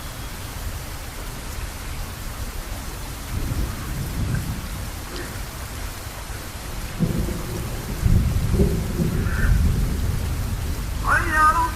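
Steady rain with rolling thunder: a low rumble about a third of the way in, then a longer, louder one through the second half. Near the end a man's voice starts the next sung phrase of the call to prayer.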